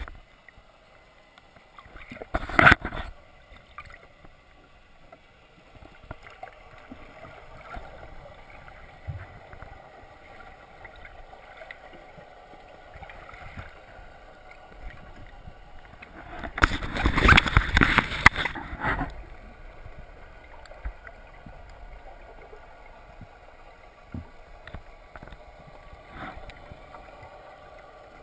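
Muffled gurgling and sloshing of seawater around an underwater camera, steady and fairly quiet. There is a short loud rush of water about two and a half seconds in, and a longer, louder one from about seventeen to nineteen seconds.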